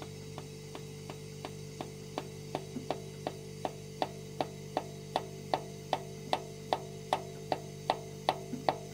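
Mallet tapping a deep socket to drive a new intake valve stem seal down onto its valve guide in a Subaru EN07 cylinder head: steady light taps about two and a half a second, growing louder. The note of the taps is the guide to seating, turning from a lighter, airy sound to a denser one once the seal bottoms out.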